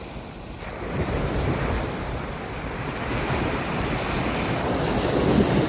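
Surf washing onto a sandy beach, with wind buffeting the microphone in a low, uneven rumble.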